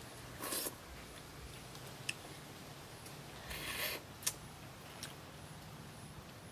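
Eating and handling grilled shrimp: two short crackling bursts, about half a second and three and a half seconds in, as a shrimp is bitten and its shell peeled, and a few sharp clicks of a spoon against the plate.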